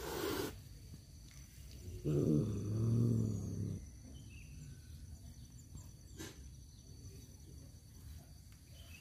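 Tomcat growling: a short hiss right at the start, then a low, drawn-out, wavering yowl for nearly two seconds, a threat call to a rival tom over a female.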